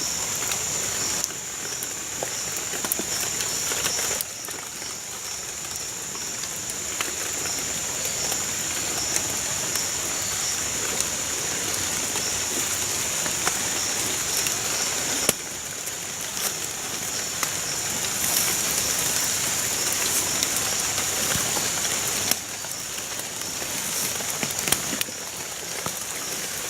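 Steady outdoor ambience: a hiss like rain with a constant high-pitched drone over it, jumping abruptly in level a few times.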